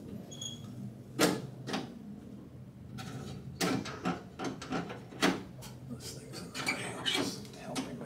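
Door latch and lock linkage of a 1977 Camaro Z28 clicking and clunking several times, a few knocks a second or so apart, as the lock is worked back and forth.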